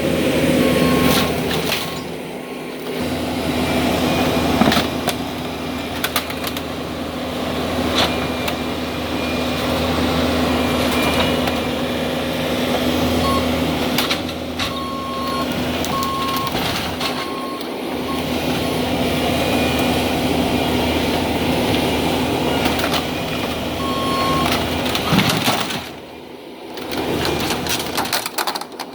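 Heavy machinery running steadily on a mobile home demolition, with short beeps now and then and scattered sharp knocks and cracks of material breaking. The sound dips near the end.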